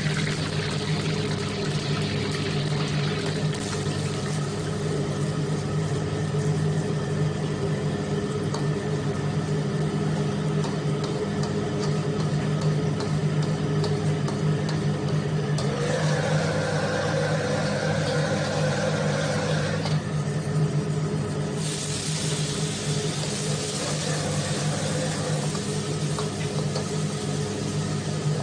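Sizzling of beaten egg frying in hot oil in a carbon-steel wok and being stirred with a metal ladle, over the steady low hum of a commercial wok stove. The sizzle is strong as the egg goes in, and it grows louder again about three-quarters of the way through.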